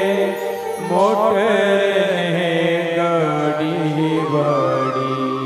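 A man sings a Gujarati devotional bhajan, drawing one word out into long, wavering ornamented notes over a steady harmonium drone.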